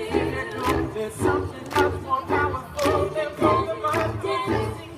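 A group of voices singing a song in harmony over a steady beat.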